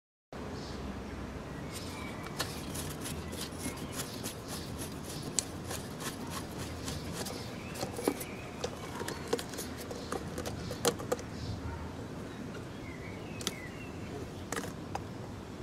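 Scattered clicks and taps of a plastic brake fluid reservoir cap being unscrewed and lifted off by hand, over a steady background hiss.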